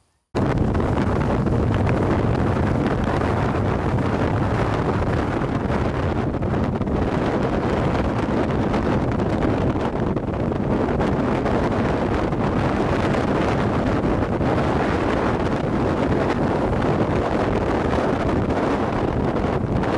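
Strong wind buffeting the microphone: a loud, steady rushing noise that cuts in suddenly just after the start.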